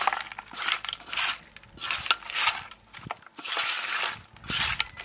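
A bare hand kneading and squeezing chopped raw goat head meat in a metal bowl, rubbing in turmeric and salt. It comes as a series of separate squeezing strokes, roughly one a second.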